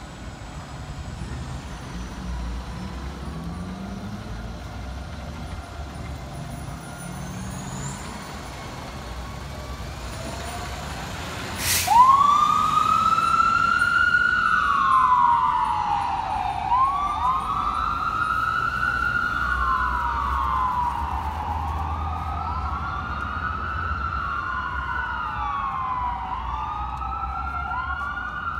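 Fire engine's diesel engine rumbling low as it pulls away. About twelve seconds in, a sudden loud burst starts the siren wailing, rising and falling slowly about every four to five seconds, with a second overlapping wail just behind it.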